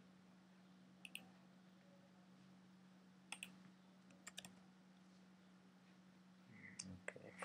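A few faint computer keyboard keystrokes, three quick double clicks spread over about three and a half seconds, over a low steady hum.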